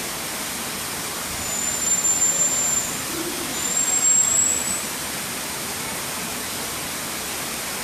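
Two long, thin, very high whistles, each lasting about a second, the second slightly rising: phee calls of a white-tufted-ear (common) marmoset. Behind them runs a steady rushing background noise.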